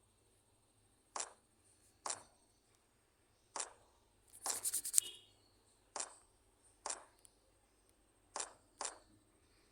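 Water dripping: single drops fall at uneven intervals about a second apart, with a quick run of several drops about halfway through.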